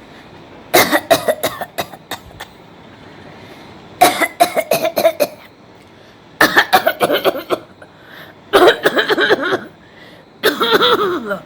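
A person deliberately coughing in five separate fits, each a quick run of short, voiced coughs. The last fit slides down in pitch.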